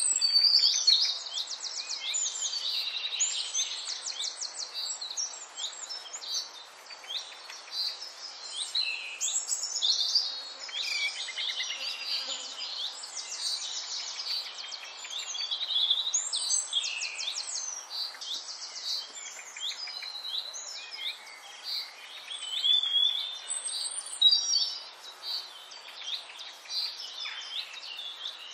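A dense chorus of songbirds chirping and trilling, many calls overlapping without a break, over a faint even hiss.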